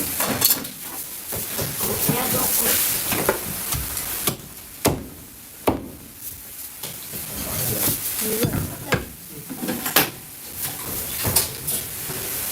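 A cleaver chopping roast duck on a chopping block: a handful of sharp, irregularly spaced chops over a steady hiss.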